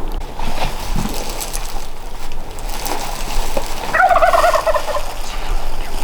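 A Merriam's wild turkey gobbler gobbling once, about four seconds in: a rapid warbling rattle lasting about a second.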